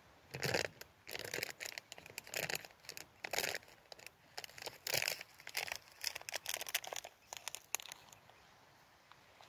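Rustling and crinkling in short, irregular bursts that stop about eight seconds in.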